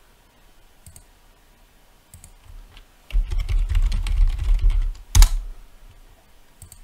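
Typing on a computer keyboard: a fast run of key presses from about three seconds in until about five, ending on one louder key stroke, with a few single clicks before and after.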